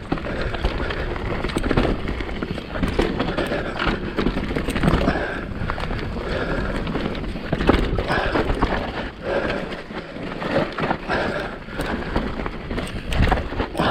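Mountain bike riding fast down a rocky trail: tyres rattling and knocking over rocks and loose stones, with the bike's chain and frame clattering in a continuous, irregular racket.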